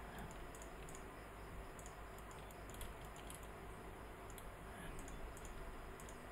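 Faint, irregular clicking of a computer keyboard and mouse over a low steady hum.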